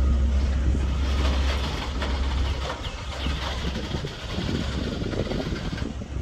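Container freight train wagons rolling past on the rails: a steady rumble and clatter of steel wheels on track, deepest in the first couple of seconds, with brief high-pitched wheel squeals about halfway through.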